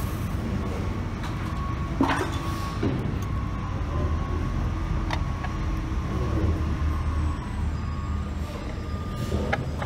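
Steady low rumble of machinery with a faint steady whine running over it, and a few light knocks about two, three, five and nine and a half seconds in.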